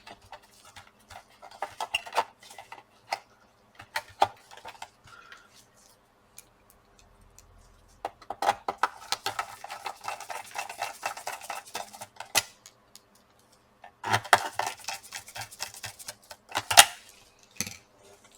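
Small plastic and metal laptop parts being handled and fitted by hand: irregular clicks, taps and light rattles, with a short lull about six seconds in.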